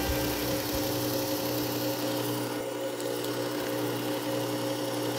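Work Sharp Ken Onion Edition knife sharpener with the Blade Grinding Attachment, its motor and belt running steadily with a constant hum and no blade on the belt.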